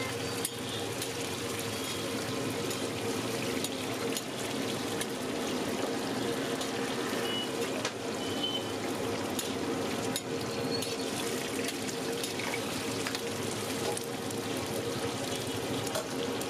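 Masala vadas deep-frying in a kadai of hot oil: a dense, steady sizzle with scattered crackles and pops, over a faint steady hum.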